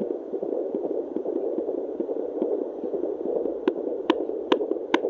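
Handheld fetal doppler's speaker hissing and whooshing, then picking up a fetal heartbeat about three and a half seconds in: quick, regular beats at about two and a half a second, a rate typical of a fetal heart rather than the mother's.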